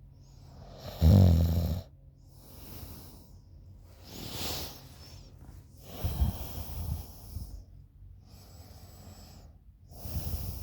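A sleeping woman snoring: a loud snore about a second in, then slower breaths in and out, with two more snores about six seconds in and near the end.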